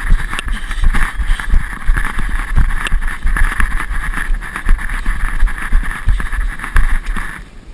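Strong wind buffeting the microphone, with a gusty low rumble and a steady rushing hiss that eases near the end.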